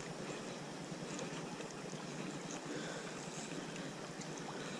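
Steady rush of shallow river water running over stones, with a few faint small ticks.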